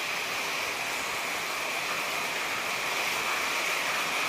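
Monsoon rain falling steadily on corrugated metal roofs: a dense, even hiss with no let-up.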